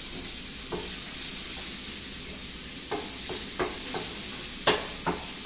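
Chopped onions sizzling in oil in a frying pan as a wooden spatula stirs them, with a steady hiss and scattered sharp taps and scrapes of the spatula on the pan, most of them after about three seconds.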